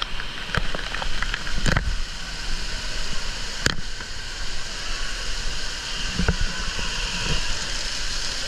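Water spraying and pattering down onto the wet floor and stairs of a water-park play structure: a steady hiss of falling water, with a few sharp knocks in the first four seconds.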